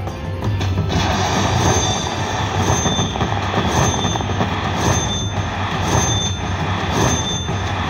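Firecracker slot machine's win sound as the winnings count up: from about a second in, a dense rushing noise with a short high ding about once a second.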